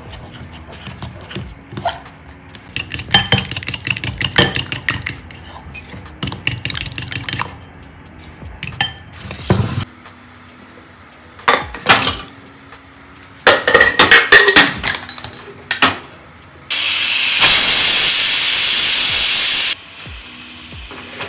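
A metal spoon clinking and scraping against a glass mixing bowl while a batter is stirred. A few metal clanks follow as the pressure cooker lid is fitted. Then a loud, steady hiss lasts about three seconds and cuts off suddenly: the pressure cooker whistling as it vents steam.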